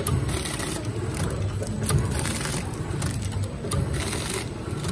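Automatic bean packing machine running, a sharp click about every two seconds over a low mechanical hum.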